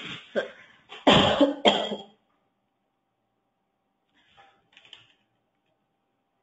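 A person coughing several times in quick succession, then two faint short sounds a few seconds later.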